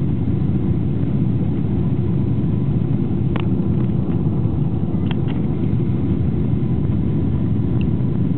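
Steady, loud engine and airflow rumble inside the cabin of a Boeing 777-200 during take-off, with a few faint clicks about halfway through.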